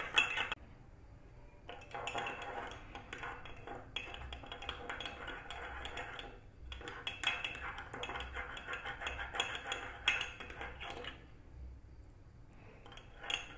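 Metal spoon rapidly beating instant coffee, sugar and a little milk against the inside of a ceramic mug, a fast run of scraping clinks in two long bouts with a short break between. The coffee is being whipped into a light brown cream.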